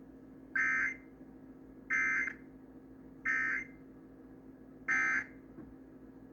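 Emergency Alert System digital data bursts: four short, loud warbling bleeps about 1.4 seconds apart. This is the coded end-of-message signal that closes an EAS test, heard over a faint steady hum.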